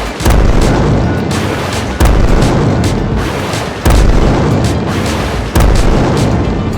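Four loud booms, roughly two seconds apart, each striking suddenly and fading out slowly, over background music.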